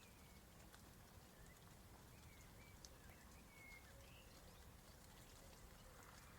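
Near silence: faint outdoor ambience, a low steady rumble with a few short chirps in the middle and scattered soft ticks.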